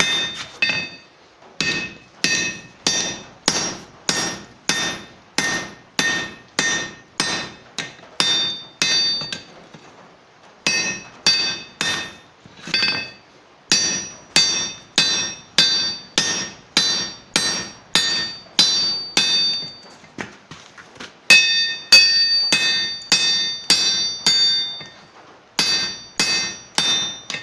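Blacksmith's hammer striking on an anvil, about two blows a second, each blow ringing metallically. The runs of blows are broken by short pauses, near ten seconds in and again near twenty.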